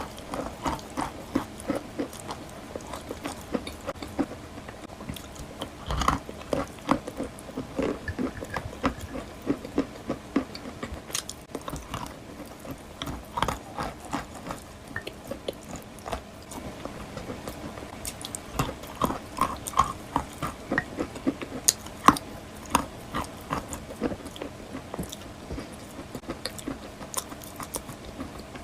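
Close-up biting and chewing of wet white chalk: a run of short, irregular crunches and crackles, several a second.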